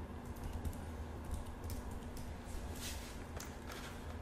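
Faint, irregular keystrokes on a computer keyboard as a command is typed, over a low steady background hum.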